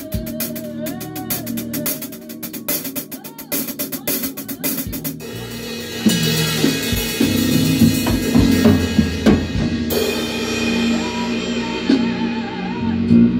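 Live band playing at a rehearsal, led by a drum kit: quick drum strokes at first, then about six seconds in the whole band comes in louder with cymbals ringing.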